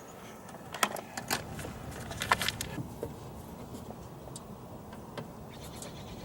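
Metal clicks and light rattles of hand tools and small parts being handled while a car door is taken apart, a few sharp clicks in the first half and fainter ticks after.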